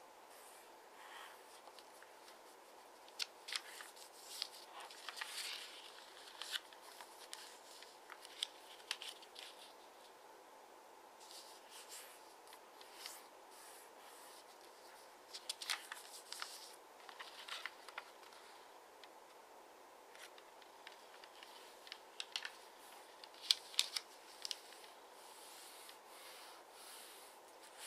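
Double-sided origami paper being folded and creased by hand: crisp paper rustling and scraping as fingers press and run along the folds, in several separate bursts, the sharpest a little before the end, over a faint steady hiss.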